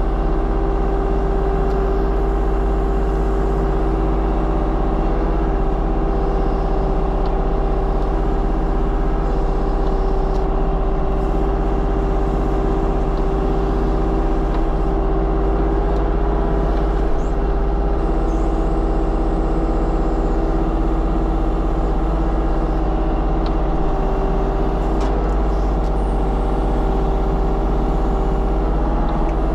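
Diesel engine of a compact construction machine running steadily at a constant pitch, with a steady hum over the rumble.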